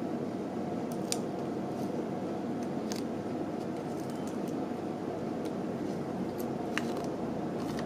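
Steady low rushing noise, like a fan or room hum, with a few short crisp ticks from fingers handling an adhesive nylon repair sheet and peeling its backing paper.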